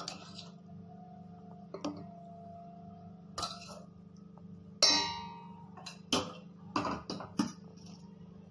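Metal spoon clinking and tapping against a stainless steel pot as pointed gourd and prawn curry is spooned onto rice: about seven scattered clinks, the loudest about five seconds in with a ringing tone. A steady low hum runs underneath.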